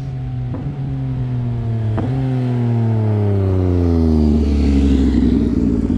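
Motorcycle engine note falling steadily in pitch as the bike slows down. About four seconds in it settles into a lower, rougher running sound.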